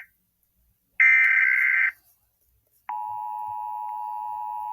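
Emergency Alert System SAME header data bursts: one ends right at the start, and another about a second long comes about a second in. About a second after it the EAS two-tone attention signal starts, a steady two-note tone, quieter than the bursts.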